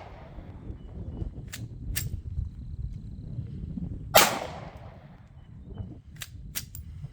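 A single loud pistol shot from a Sig P320 about four seconds in, echoing briefly, with a few faint metallic clicks before and after. The gun fires only one shot at a time: after being run over in gravel it does not go back into battery on its own.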